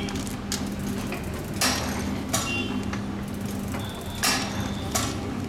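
Vertical form-fill-seal pouch packing machine running, with a steady motor hum and sharp mechanical clacks from its sealing jaws closing and opening. The clacks come mostly in pairs about 0.7 s apart, repeating roughly every two and a half seconds.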